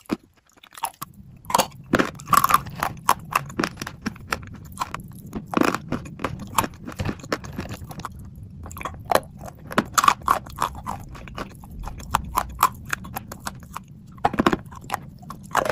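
Close-up crunching and chewing of dry edible clay chunks: sharp, irregular crunches as the chunks are bitten and broken between the teeth.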